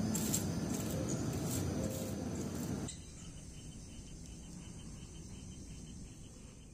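Outdoor ambience with short bird chirps over background noise. About three seconds in it drops suddenly to a quieter steady hiss with a faint fast pulsing, then fades out near the end.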